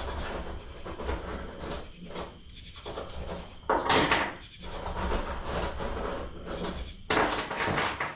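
Hands-on work fitting the air horn to the motorcycle's plastic side cover: irregular clattering and scraping of bolts, tools and parts, with two louder rough bursts about four and seven seconds in.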